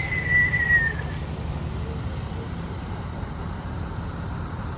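Steady low rumble of vehicle engines or road traffic, with a thin high squeal that falls slightly in pitch and fades about a second in.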